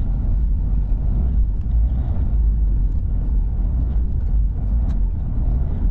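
Car driving on an unpaved forest track, heard from inside the cabin: a steady low rumble of tyres and engine, with a few light ticks near the end.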